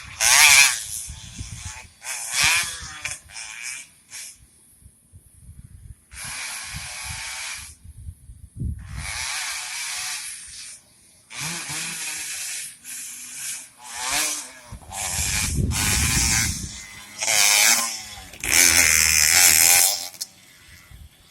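Dirt-bike engines revving hard as the bikes pass one after another, each pass a brief high-pitched burst that rises and falls.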